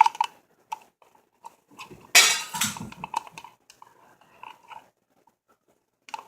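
Clear glue and water being stirred together in a container with a utensil: light scattered clicks and scrapes, with one louder scrape about two seconds in, dying away near the end.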